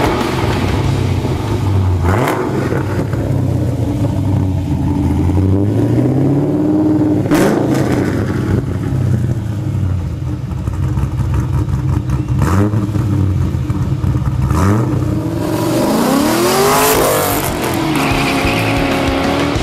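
2006 Pontiac GTO's 6.0-litre LS2 V8 through a custom 3-inch dual exhaust with an X-pipe and Kinney's Street Demon mufflers. It runs at idle and is revved in short blips a few times. Near the end the car accelerates away, the exhaust note rising sharply.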